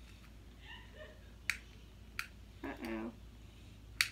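Sharp plastic clicks, three in all, spaced about a second or less apart, from fingers working at the stuck cap of a small makeup container. A short hum from a voice comes between the second and third click.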